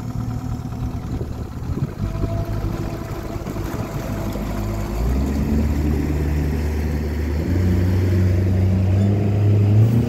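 Yamaha 80 hp outboard motor accelerating to get the boat under way, its pitch climbing in steps about halfway through and again near the end while it grows louder, with water rushing past the hull.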